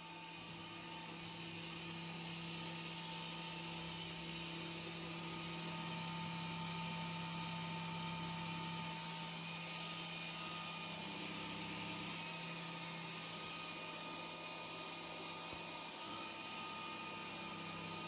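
Robot vacuum cleaner running: a steady motor whir and hum with several fixed tones, getting louder over the first few seconds as it comes closer, then holding steady.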